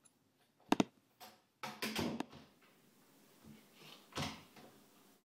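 An interior door being handled and shut. A pair of sharp latch clicks comes just under a second in, then a short cluster of knocks and rubbing around two seconds, and one more knock about four seconds in.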